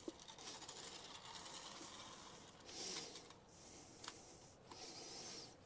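Faint rubbing and scraping of cloth-gloved hands working a part loose in the bore of a cast-iron torque converter housing, in short hissy stretches with a few light metallic clicks.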